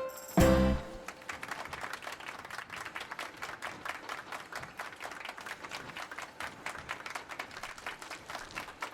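A short, loud hit about half a second in, then a crowd clapping and applauding.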